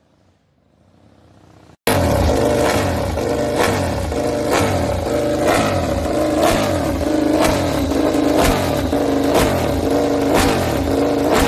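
KTM RC16 MotoGP bike's V4 engine running with the rear wheel up on a paddock stand, held at raised revs. It starts abruptly about two seconds in, with a sharp crack about once a second.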